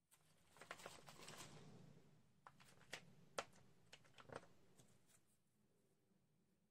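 Faint handling sounds of craft supplies: a crackly rustle of a plastic bag for about a second and a half, then a handful of small sharp clicks and taps as an ink pad and a small glass vial are picked up.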